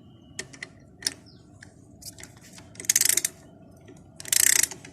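Ratchet wrench clicking as the new 14 mm bracket bolt is turned: a few single clicks, then two half-second runs of rapid ratcheting about three and four and a half seconds in.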